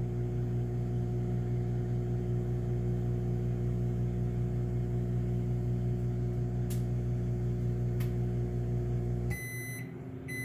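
Microwave oven running with a steady hum while it cooks an egg scramble, then cutting off about nine seconds in as the cycle ends, followed by end-of-cycle beeps.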